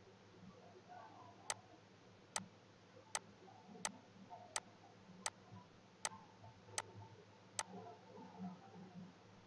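Computer mouse button clicked eight times at an even pace, about one click every three-quarters of a second, over faint room noise.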